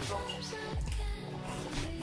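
Electronic music with a heavy bass; a deep bass note slides down in pitch about a second in.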